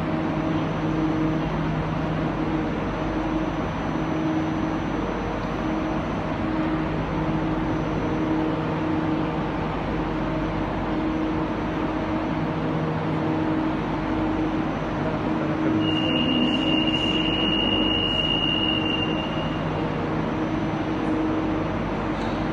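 Metro train standing at an underground platform, its equipment giving a steady hum under the station's background noise. About 16 seconds in, a single high steady tone sounds for about three and a half seconds.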